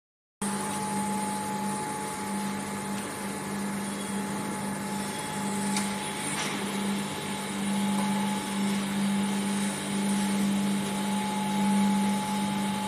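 Steady drone of a vacuum-process (V-process) casting line's machinery, with a low hum that swells and fades in an even pulse and a thin, steady higher tone above it. A couple of faint clicks come about six seconds in.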